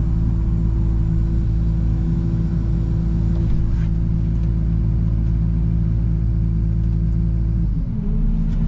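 Excavator engine running steadily at working speed, then dropping in pitch near the end as it is throttled down.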